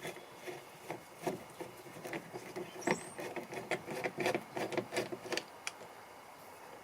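Ratchet wrench clicking in short, irregular runs as it turns out the 8 mm bolt holding the inside door handle to the door, with a brief squeak about three seconds in. The clicking stops about five and a half seconds in.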